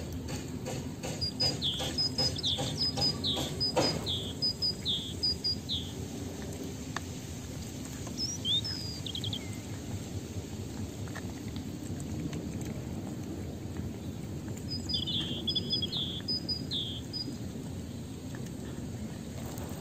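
A small songbird singing runs of short high chirps that drop in pitch, in three bursts, while cats eat wet food from plastic bowls with soft chewing clicks.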